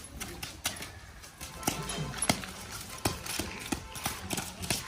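A horse's hooves clip-clopping, several hoof strikes a second, louder and clearer from about a second and a half in.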